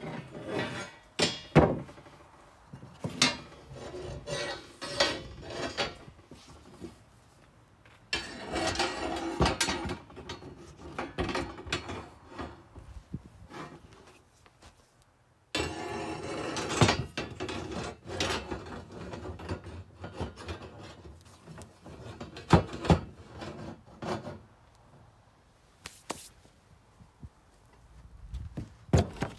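Cast-iron parts of a Singer sewing-machine treadle base being handled and set against each other on a wooden table: scattered sharp knocks and clanks, with stretches of scraping and rubbing of metal on wood in between.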